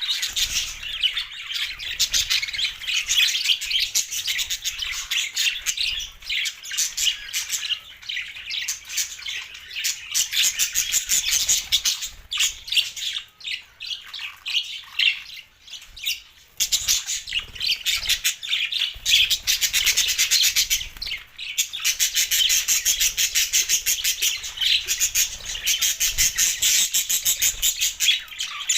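Budgerigars chirping and chattering continuously, rapid high-pitched twittering with squawks, easing off briefly in the middle before picking up again.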